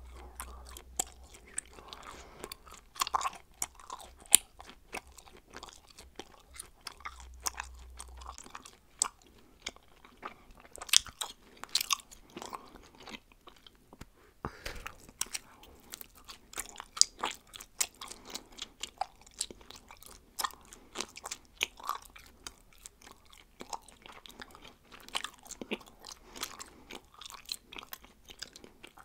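Bubblegum being chewed: wet smacks and clicks at an irregular pace, with a brief pause about halfway through.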